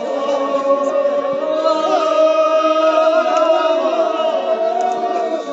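A group of voices chanting together, holding one long steady note that breaks off near the end.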